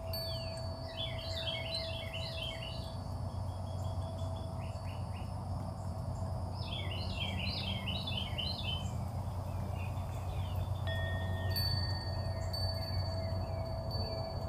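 A songbird sings a quick phrase of rapid, repeated falling notes three times, over a low steady hum and a held ringing tone; more held tones come in about two-thirds of the way through.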